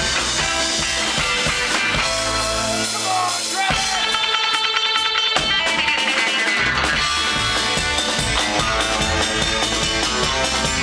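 Live rock band playing: electric guitars over upright bass and drum kit. The bass and drums drop out for about three seconds near the middle, leaving the guitars, then the full band comes back in.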